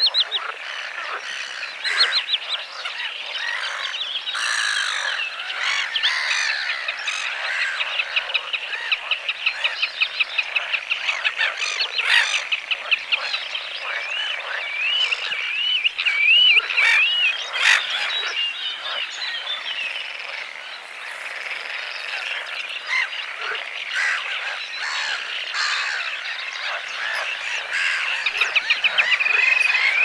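Spring wetland chorus of frogs and birds: fast pulsed trills and chirps overlap throughout, with a wavering whistled call rising and falling about halfway through and again near the end.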